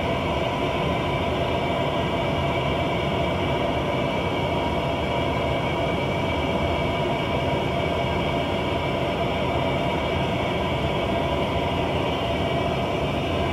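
Jet aircraft engine noise heard inside the cockpit in flight: a steady rushing rumble with several steady whining tones on top, unchanging throughout.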